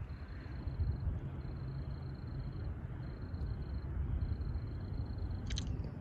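Low, steady rumble of a freight train's diesel locomotives still some way off, with a short crackle near the end.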